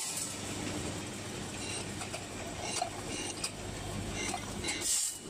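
Automatic coffee bean filling and capping machine running: a steady mechanical noise from the rotary filling turntable and can conveyor, with light clicks scattered throughout and short hisses at the start and again just before the end.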